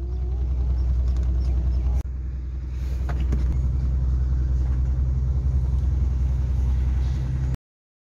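Car engine idling, heard from inside the cabin as a steady low hum. It dips for an instant about two seconds in and cuts off suddenly near the end.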